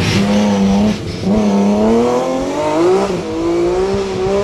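BMW hillclimb race car accelerating hard past and away, its engine note climbing in pitch, with gear changes about a second in and about three seconds in.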